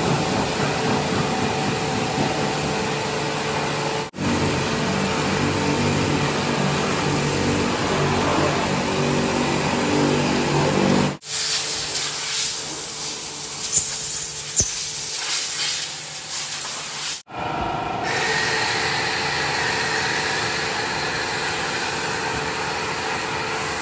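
Car-wash pressure washer running: a steady motor hum under the hiss of spraying water. The sound breaks off sharply three times and changes character after each break.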